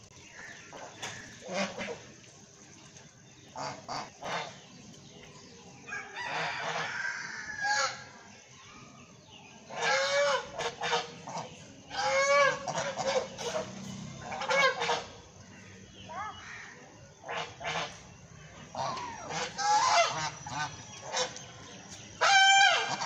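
Domestic white geese honking: many short calls in bunches, several birds overlapping at times, louder and more frequent in the second half.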